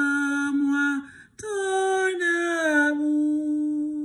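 A woman singing a French hymn alone, unaccompanied, in long held notes. After a short break about a second in, she sings a phrase that steps down in pitch and settles on a long held final note.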